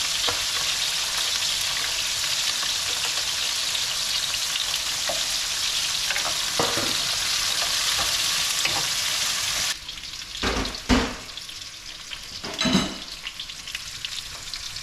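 Onion, garlic, celery, ginger and carrots sizzling as they are stir-fried in a hot pan. The sizzle drops away suddenly about ten seconds in, followed by a few knocks of a utensil against the pan.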